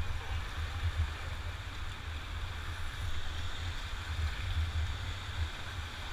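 Steady rushing of the Bhote Koshi's whitewater rapids heard from a raft on the river, an even hiss with a fluctuating low rumble of wind on the microphone underneath.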